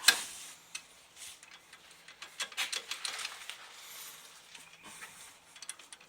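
Metal tool clicks on the hub bolts as a ratchet and socket are worked: one sharp metallic click at the start, then a run of quick irregular clicks in the middle and a few more near the end.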